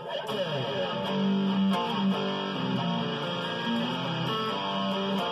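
Electric guitar playing a simple riff of single notes that change every fraction of a second at an even level.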